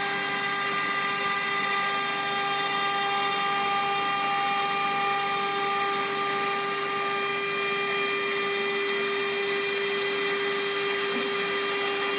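SKS 2040 CNC router spindle running at high speed while milling aluminum sheet: a steady high-pitched whine of several fixed tones over a hiss of cutting.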